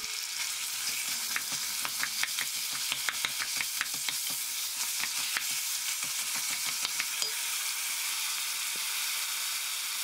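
Ground beef sizzling in hot olive oil and butter in an enamelled cast-iron pot while a wooden spoon stirs it and breaks it up. It is a steady hiss with many small crackles and spoon scrapes that thin out over the last few seconds. The mince is being browned until its released liquid cooks off.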